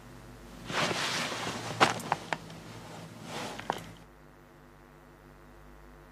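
Cloth rustling and shuffling, with a few sharp clicks, as someone gets up from a seat on the floor and moves away: one longer stretch about a second in, a shorter one near three and a half seconds. A faint steady hum lies underneath.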